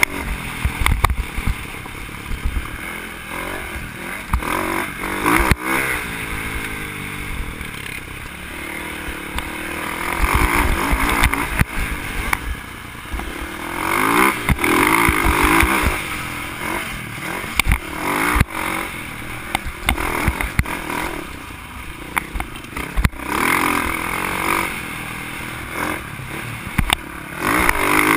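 Dirt bike engine revving up and down over and over as it is ridden along a rough dirt trail, with sharp knocks and rattles from the bike going over bumps.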